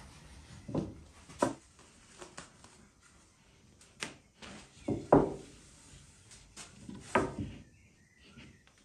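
A thin baklava dough sheet being unrolled off a long wooden rolling pin onto a wooden board: a handful of separate knocks and soft thumps, the loudest about five seconds in.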